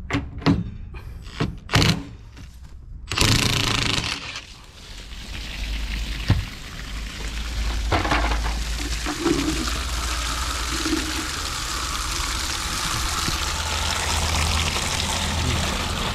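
Cordless impact wrench fires in a few short bursts to undo a fitting at the base of a gas storage hot water tank. About three seconds in, water suddenly rushes out, then keeps pouring steadily as the tank drains down.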